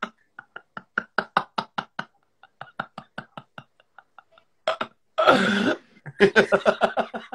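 Men laughing hard in rapid breathy pulses, about five a second, with a louder, longer outburst of laughter about five seconds in.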